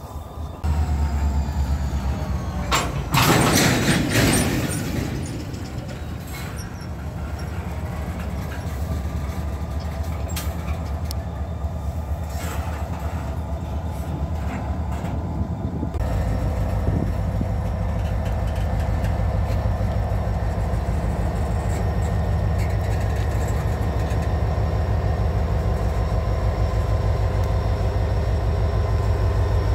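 Norfolk Southern diesel-electric locomotive engine running as a slow freight train rolls past. There is a loud hissing burst about three seconds in. From about halfway the engine drone is louder and steadier, with several held tones.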